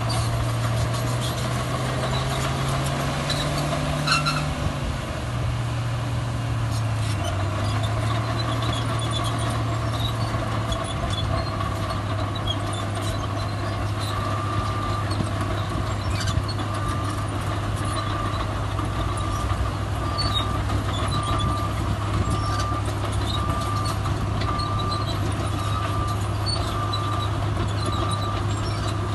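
Heavy diesel engine of earthmoving machinery running under load, its pitch shifting in the first few seconds, with a single knock about four seconds in. About halfway through a reversing alarm starts beeping steadily, about once a second.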